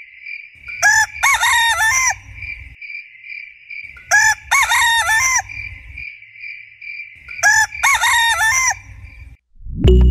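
A rooster crowing, three times about three seconds apart. A steady high-pitched pulsing chirp runs underneath, and music starts near the end.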